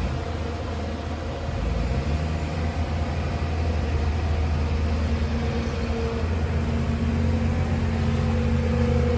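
Heavy machine's diesel engine running steadily, with its pitch stepping up slightly about two seconds in.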